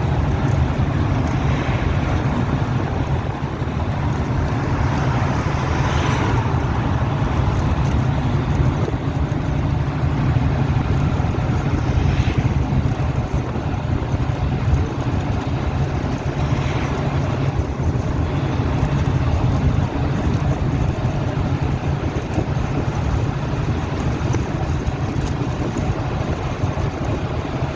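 Steady low rumble of a moving vehicle, with wind noise on the microphone and a few soft swells.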